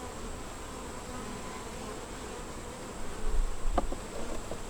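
Honey bees buzzing steadily around an open hive, with one short click about four seconds in.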